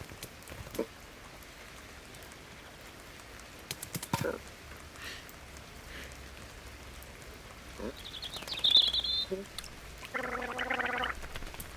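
Sparse cartoon sound effects: a few soft taps, then a brief high warbling trill, and a throaty vocal sound lasting about a second near the end.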